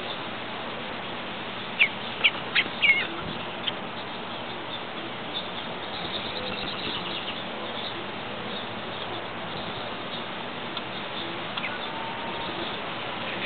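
Several short, sharp bird chirps in quick succession about two seconds in, one with a slight bend in pitch, over a steady background hiss. A few fainter chirps follow later.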